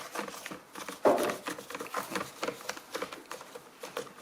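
Quick irregular clicks and plastic rustling of hands handling a packet of antibacterial wipes and pulling a wipe out, with one louder rustle about a second in.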